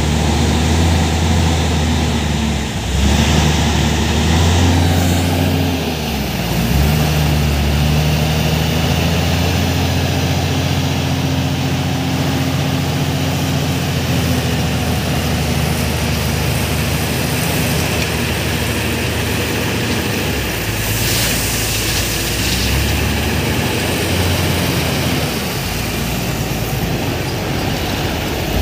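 JCB wheel loader's diesel engine working hard, its pitch rising and falling as the machine drives and lifts a bucket of crushed stone.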